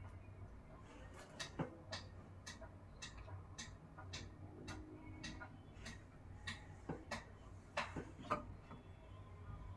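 Light, unevenly spaced clicks and taps, about two a second with a few louder ones near the end, from hands working a safety pin and elastic through a fabric scrunchie tube.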